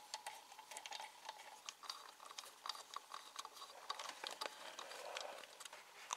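Faint, irregular light clicks from a hand driver with a hex bit turning the eight bolts into an Audi V6's crankshaft belt pulley, running them in snug.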